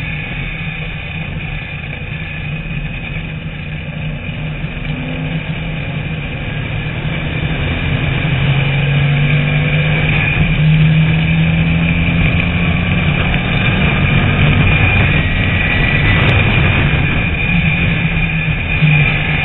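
A TVR Tuscan race car's engine running hard at racing speed, heard from on board with wind and road noise over the camera. The engine note climbs and gets louder about eight seconds in as the car accelerates.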